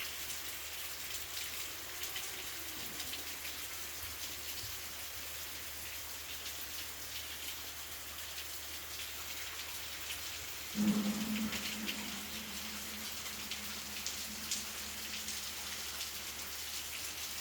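Steady rain falling, an even hiss of drops. About eleven seconds in, a low pitched hum starts suddenly and fades away over the next few seconds.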